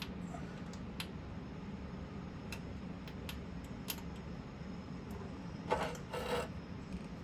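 Small sharp clicks and rubbing as the leads of a new component are pushed and worked into the holes of a circuit board, with a short louder scrape near the end.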